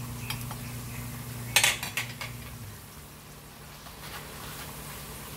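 A metal spoon clinking and scraping against a steel wok, with a loud clatter of a few quick strikes about one and a half seconds in, over a steady low hum that fades out partway through.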